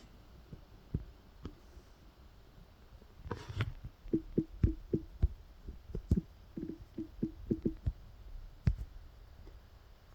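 Scattered light clicks and knocks, with two quick runs of short, dull taps in the middle and a brief rustle just before the first run.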